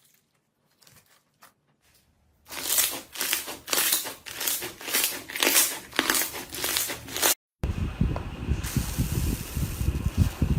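Slime being squeezed and pressed by hand, with dense crackling and popping after a few faint clicks. Near the end, after a sudden cut, a different low rumbling noise with soft thumps takes over.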